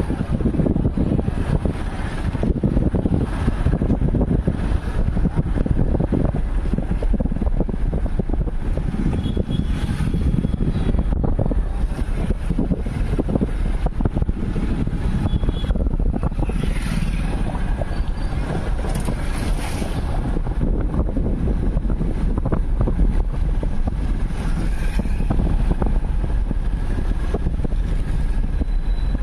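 Steady noise of a moving vehicle, with wind buffeting the microphone.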